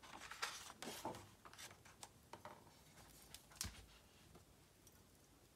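Faint rustling and rubbing of a hardcover picture book's pages and cover as it is handled and closed, with a soft thump about three and a half seconds in as the book comes down flat on the table.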